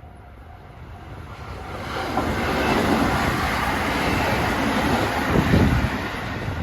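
A train passing close by: the rumble and rail noise build up over about two seconds, stay loud, then ease off near the end.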